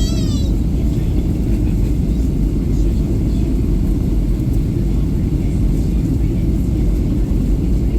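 Steady cabin noise inside a Boeing 737-800 during descent: a loud, even, deep rumble of airflow and engines, with a brief high gliding sound at the very start.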